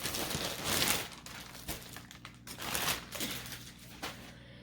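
A bag crinkling as yarn is handled and pulled out of it, loudest in the first second and again briefly about three seconds in.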